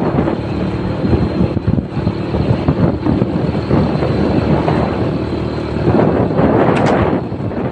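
Motorcycle engine running while riding, mixed with wind buffeting the microphone. A brief sharp sound comes near the end.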